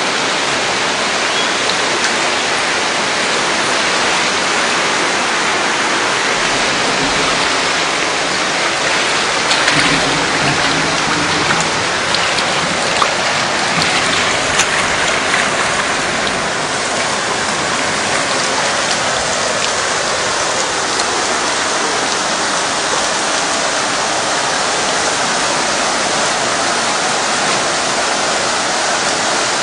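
Heavy rain and fast-flowing floodwater rushing along a flooded street, a steady loud hiss of downpour and moving water.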